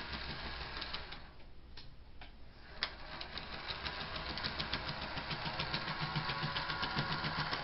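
A model Doodlebug railcar's motor whirring as it runs along the track, with a rapid, regular clicking from its drive gears: the sign of a bad, cracked gear. The sound dips for a moment about two seconds in, then comes back louder.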